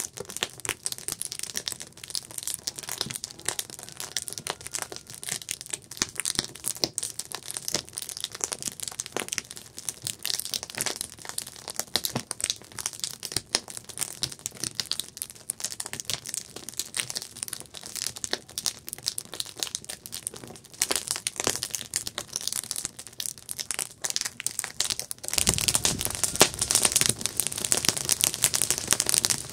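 Wood campfire crackling and popping, with dense irregular snaps. About 25 s in, a louder rushing hiss joins the crackle.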